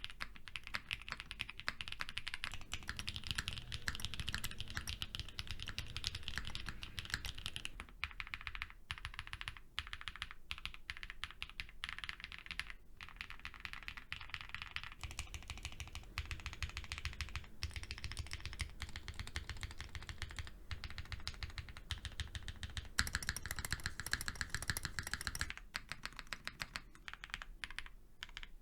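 Continuous typing on Odin custom mechanical keyboards with lubed Whipped Cream switches, a polycarbonate plate, GMK keycaps and full foam dampening. The tone of the key clacks shifts every several seconds as the typing alternates between the Odin V1 and the Odin V2.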